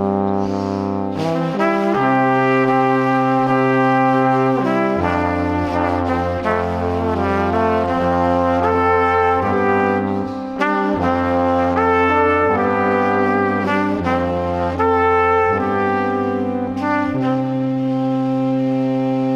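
Background music: sustained, held chords with a steady bass that change every few seconds.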